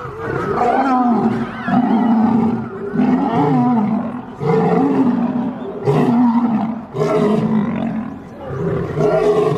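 Lions snarling and roaring at each other in a fight: a run of harsh calls, about one a second.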